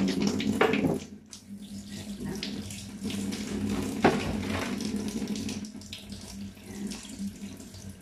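Kitchen tap running into a stainless steel sink, the water splashing unevenly as corn cobs are rinsed under the stream. A single sharp knock about four seconds in as a cob is put into an aluminium pot.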